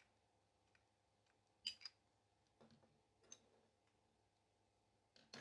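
Near silence with a few faint clicks, a quick pair just under two seconds in: a plastic hair trimmer being handled and turned over.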